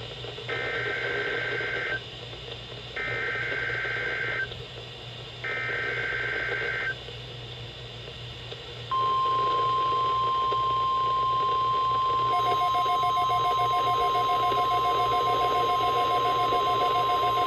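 NOAA Weather Radio Emergency Alert System test signal: three bursts of warbling digital SAME header tones, then the steady 1050 Hz weather radio warning alarm tone held for about nine seconds. A few seconds into the tone, a second, rapidly pulsing beep joins in.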